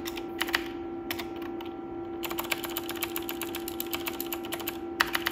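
Typing on a computer keyboard: runs of quick key clicks, thinning for a moment then coming thick and fast, over a steady hum.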